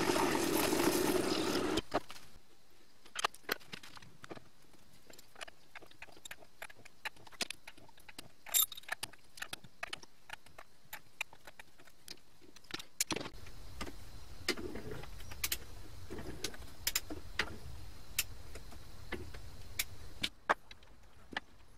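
A small metal lathe drilling into brass for about the first two seconds, then stopping. After that come scattered sharp metallic clicks and ticks as a steel tap is worked by hand into the brass part in the lathe chuck, with a low rumble under the clicks for several seconds past the middle.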